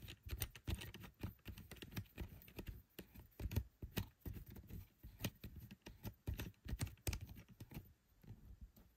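Fingers working small plastic GoPro mounting parts and a hand-turned screw close up: a busy, irregular run of small clicks, taps and rubs.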